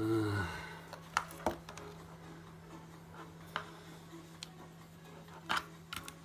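Scattered sharp clicks and taps of small hand tools and metal camera parts being handled, about seven over the few seconds, over a steady low hum. A short falling vocal murmur is heard at the very start.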